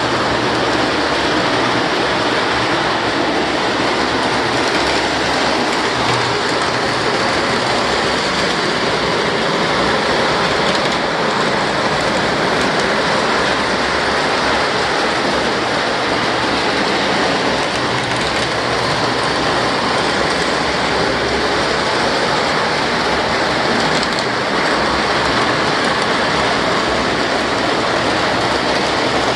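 Several O-gauge electric model trains running at once on three-rail metal track: motors and wheels make a steady, dense rattle that does not let up.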